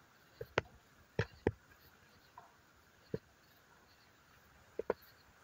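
Several short, sharp clicks and knocks, some in quick pairs, over faint steady chirring of night insects.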